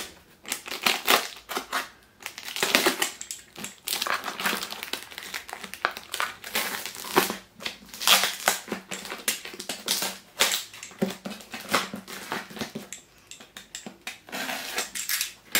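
Cardboard shipping box being opened by hand, with its packing crumpled: a run of irregular crunches, rips and crinkles.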